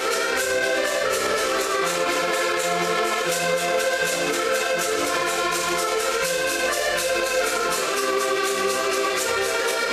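Several diatonic button accordions playing a lively folk tune together in sustained reedy chords, over a fast, even clicking beat from a wooden percussion instrument.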